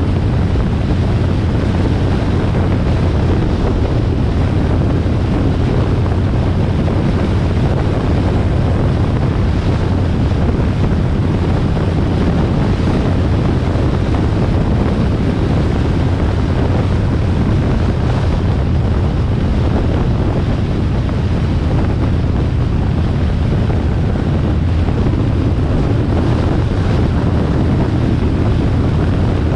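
Wind rushing over the microphone, mixed with the low drone of a Harley-Davidson XL1200R Sportster's V-twin engine running steadily at road speed.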